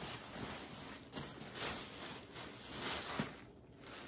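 Thin plastic bag crinkling and rustling in uneven bursts as a soft leather bag is pulled out of it, dying down briefly near the end.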